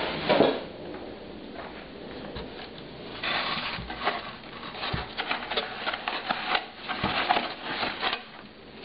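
Packing paper and cardboard rustling and crinkling as hands dig into the box, dense and crackly in the second half. A single thump just under half a second in.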